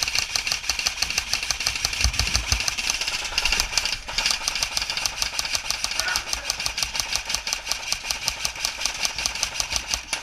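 Electric airsoft gun firing on full auto: a long, rapid, even stream of shots with a brief pause about four seconds in.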